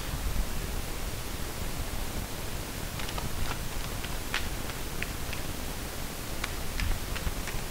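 Steady hiss of recording noise, with a sharp tap right at the start as a tarot card is laid on the table, then a scatter of small light clicks from card handling.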